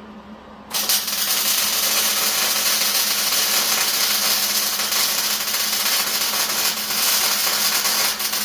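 Electric welding arc running steadily for about eight seconds, a dense crackling hiss that starts sharply just under a second in. It is a one-inch stitch weld being laid on a steel inside corner.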